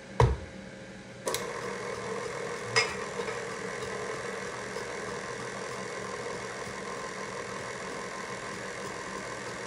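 A thump, then a KitchenAid Classic stand mixer's motor switches on about a second in and runs steadily with a hum, its flat beater turning through pancake batter in the steel bowl. A light knock follows shortly after.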